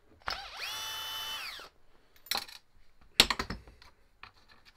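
Cordless screwdriver spinning a wheel nut on an RC crawler's hub in one short burst of about a second: the motor whine rises, holds, then winds down. A few sharp plastic clicks and knocks follow as the wheel is handled.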